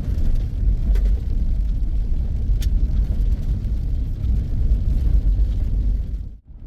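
Vehicle driving along a gravel logging road: a steady low rumble of engine and tyres, with a couple of light ticks. The sound drops out abruptly for a moment near the end.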